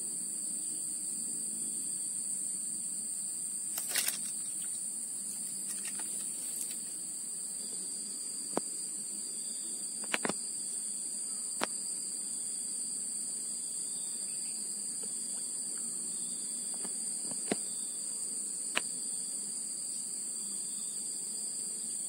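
Steady high-pitched drone of insects calling, with a handful of sharp clicks scattered through it.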